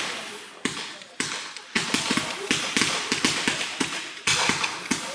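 Ground-fired fireworks cake launching a fan of comets. Each new volley starts with a sudden rush of hiss, several of them a second or less apart, over dense crackling pops.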